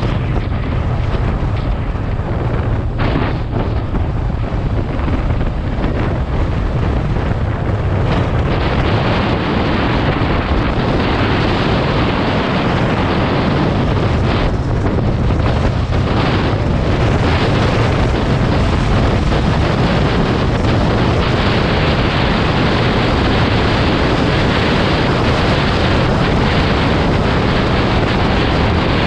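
Loud, steady wind buffeting on the microphone over a low rumble from a moving vehicle.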